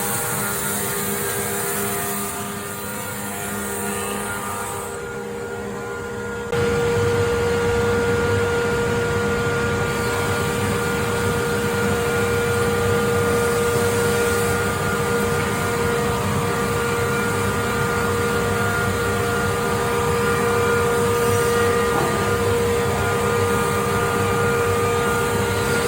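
Weinig Unicontrol 10 CNC window-production machine running with a steady whine. It jumps suddenly louder about six and a half seconds in and holds that level.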